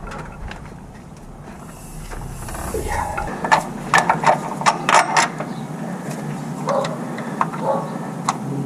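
A string of sharp metallic clicks and clinks from hand tools and engine parts being turned and handled, bunched about three and a half to five seconds in, with a few fainter knocks later; a low steady rumble sits under the first few seconds.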